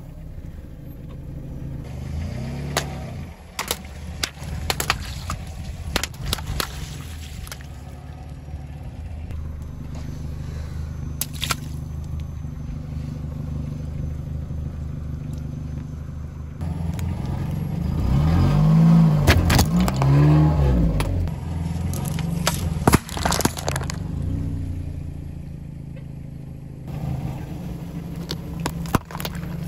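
A car's engine running steadily while its tyre rolls over objects on asphalt, crushing them with sharp crackles, snaps and scraping. The crushing is louder for a few seconds past the middle, where the hum rises and falls in pitch.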